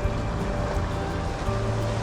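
Background music with held notes, over a steady wash of sea surf.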